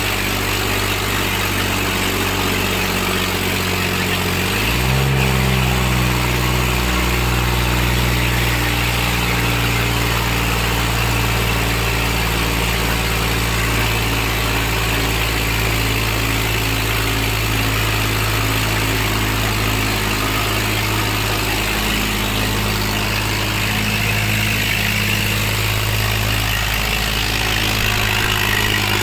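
Eicher diesel tractor engine running steadily under load; about five seconds in the revs rise quickly and then hold at the higher speed.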